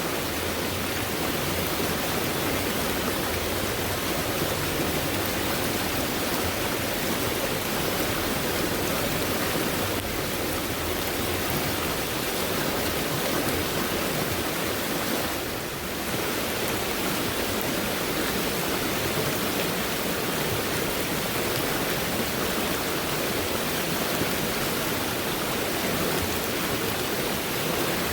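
Fast-moving stream swollen by heavy rainfall: a steady rush of water, with a brief lull about halfway through.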